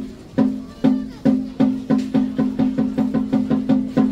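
A single low note struck over and over on a traditional Japanese accompaniment instrument, each stroke sharp and briefly ringing. The strokes speed up steadily, from about two a second to about five a second near the end.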